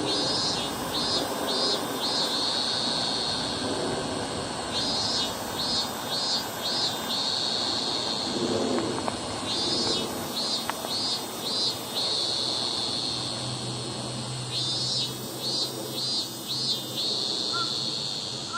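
An insect singing in a repeating phrase, a steady high buzz followed by four quick chirps, about every five seconds, over steady low background noise. A low hum joins about two-thirds of the way in.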